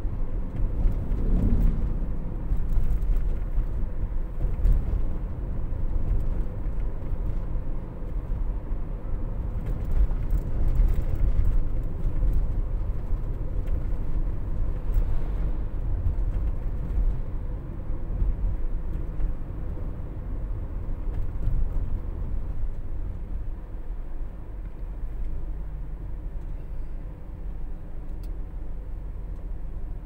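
Inside the cabin of a Toyota Noah 70-series minivan driving downhill: a steady low rumble of engine and tyre noise, easing slightly in the last ten seconds. Speed is held back by engine braking in a manually selected gear rather than the brakes.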